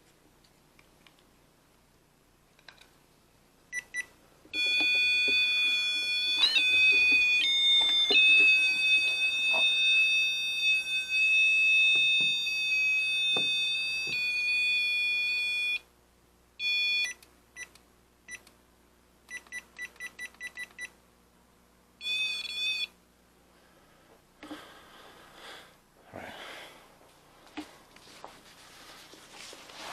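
REM pod electromagnetic-field detector sounding its electronic alarm: a loud steady tone held for about eleven seconds with a step in pitch, then a few short tones and a run of rapid beeps.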